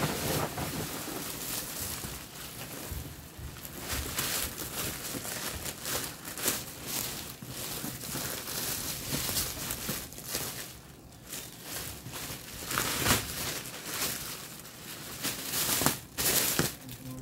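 Clear plastic wrapping crinkling and rustling as a handbag in a plastic sleeve is handled and pulled out, in irregular crackles that are loudest near the end.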